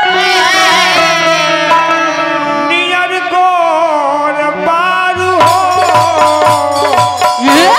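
Bhojpuri folk song accompaniment: a wavering melody line over a stepping bass, with tabla-like drums. A steady run of drum strokes comes in about five seconds in, and a high note rises steeply near the end.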